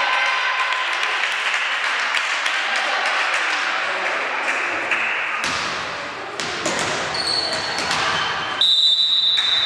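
Volleyball rally in an echoing sports hall: the ball being struck and bouncing, with the sharp knocks ringing off the walls over a din of players' movement and voices. Near the end a high, steady whistle-like tone sounds for about a second.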